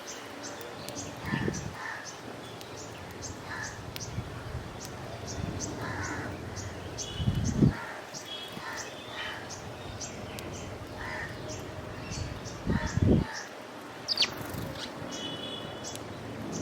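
Crows cawing again and again, with small birds chirping quickly and steadily in the background. A few short low rumbles, the loudest sounds, come about a second and a half in, about halfway through and near the end.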